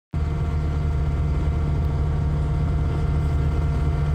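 A heavy machine's engine running at a steady speed, cutting in suddenly a moment in, with a steady low rumble and a set of even overtones.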